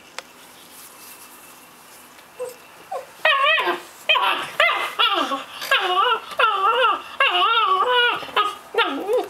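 Puppy whining: a rapid run of high, wavering whimpers that starts about three seconds in and carries on with short breaks.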